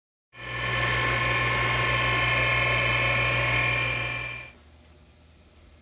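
Surface grinder running, its abrasive wheel grinding steel ball-nut shim spacers: a steady high whine over a hiss. It comes in about a third of a second in and dies away about four and a half seconds in, leaving a faint hum.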